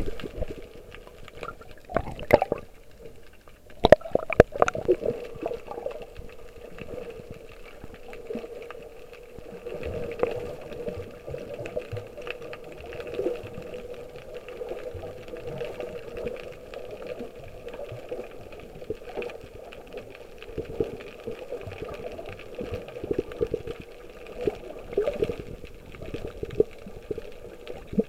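Muffled underwater churning and gurgling of water around a submerged camera, with a few sharp knocks about two and four seconds in.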